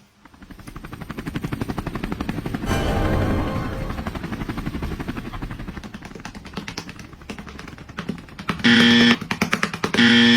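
A fast, even rattle of clicks that swells about three seconds in and then fades, followed by two loud, steady pitched blasts of about half a second each near the end.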